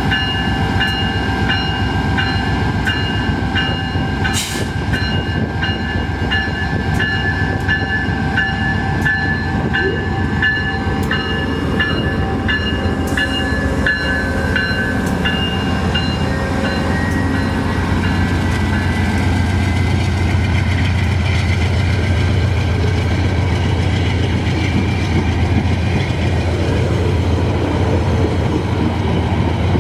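VIA Rail GE P42DC diesel locomotive pulling a passenger train away from the station, with a bell ringing about twice a second through the first half. In the second half the bell stops and the low rumble of the train and its rolling cars grows louder.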